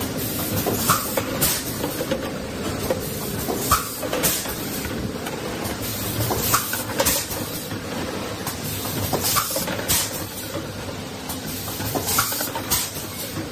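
Four-cavity PET bottle blow-moulding machine running: a steady mechanical din broken at irregular intervals by short sharp hisses and clacks.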